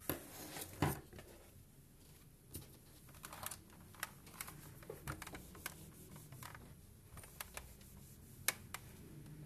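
Scattered light clicks and taps of hands setting out an ironing pad and placing small fabric pieces on it, with a sharper knock near the end as the steam iron is set on the pad.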